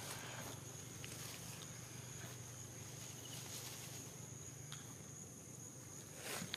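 Steady high-pitched drone of insects, with faint scattered rustles and crackles of dry leaves and twigs and a louder rustle near the end.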